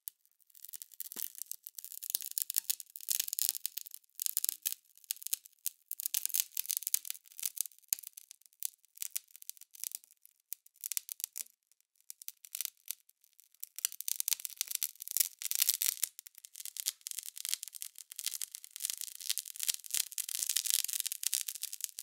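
Fast, dense, high-pitched crackling and sizzling from a hot okonomiyaki topped with katsuobushi (dried bonito flakes), heard very close up as the flakes curl and wave in the rising heat.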